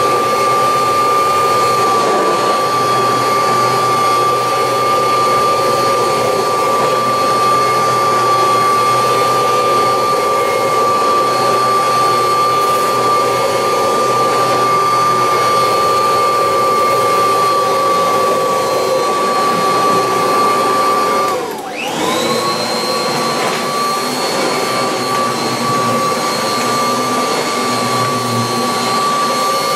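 1986 Kirby Heritage 2 upright vacuum cleaner running while vacuuming carpet: a steady motor whine over rushing air. About two-thirds of the way through, the whine drops sharply in pitch and then climbs straight back up.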